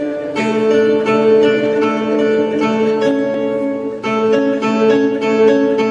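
Live acoustic music: a plucked string instrument picking and strumming notes over steady held tones.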